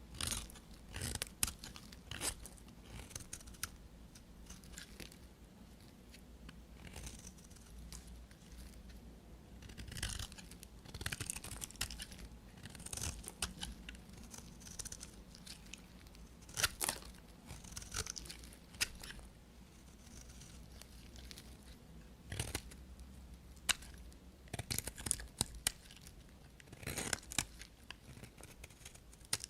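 Knife cutting through bars of soap: irregular runs of short, crisp crunches and scrapes, with quieter pauses between them.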